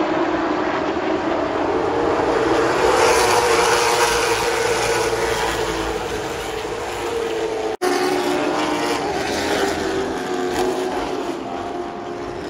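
Several late model stock cars' V8 engines running on the track, a steady drone whose pitch drifts up and down as the cars come past. The sound cuts out for a split second about two-thirds of the way through.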